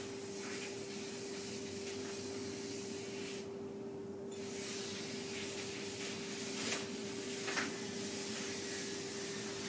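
Charcoal scraping and rubbing across a large sheet of paper in long strokes, with a brief pause in the middle and two sharper scratches near the end, over a steady faint hum.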